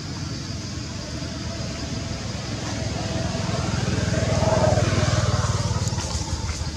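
A motor vehicle's engine passing by, growing louder to a peak about four to five seconds in and then fading.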